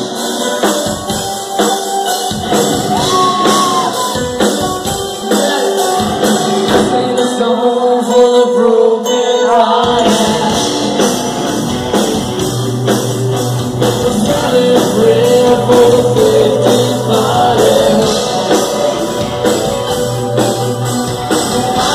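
Live rock band playing with a sung lead vocal, drums and guitars; the bass end comes in fully about ten seconds in.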